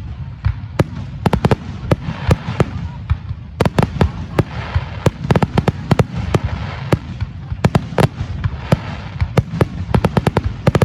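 Fireworks display: a dense, irregular run of sharp bangs and cracks, several a second, over a low rumble.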